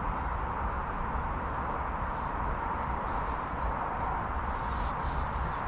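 Steady outdoor background noise with faint bird chirps now and then.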